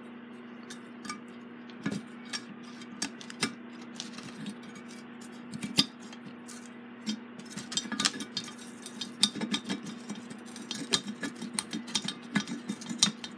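Irregular small metal clicks and clinks from hands and a screwdriver working inside a rusty iron fan base, searching for a dropped screw; the taps come more often in the second half, over a steady low hum.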